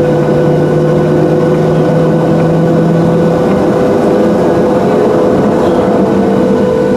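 Boeing 737-700's CFM56-7B jet engines heard from inside the passenger cabin, running with a steady drone and humming tones; about halfway through one low hum stops and a slightly higher tone comes in.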